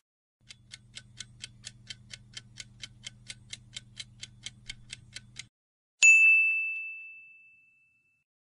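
Countdown-timer sound effect: a clock ticking about four times a second over a low hum for about five seconds, then a single bright ding that rings out and fades, marking the answer reveal.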